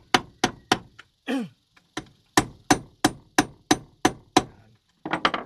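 Light hammer taps driving a battery terminal clamp down onto a car battery post, about three taps a second, with a pause about a second in and a quick flurry near the end.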